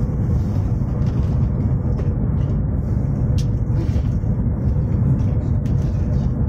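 Steady low rumble of a Chinese high-speed train running at speed, heard from inside the passenger cabin, with a faint steady hum over it.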